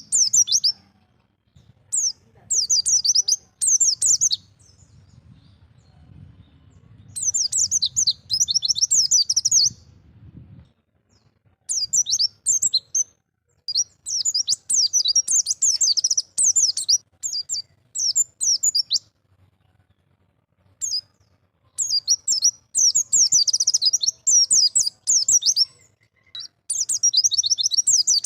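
White-eye (pleci) singing its wild-style 'ngalas' song: rapid, high twittering phrases of one to three seconds, broken by short pauses.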